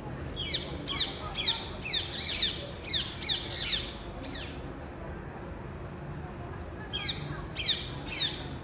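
A parrot squawking: a quick run of about nine short calls, each falling in pitch, then a pause and three more near the end.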